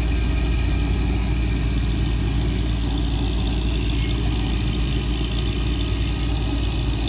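A vehicle engine running steadily at an even pace, with a deep, constant low rumble.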